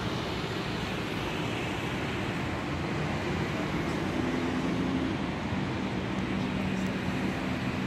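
Steady road traffic: cars and other motor vehicles running past, an even wash of tyre and engine noise with a low engine hum.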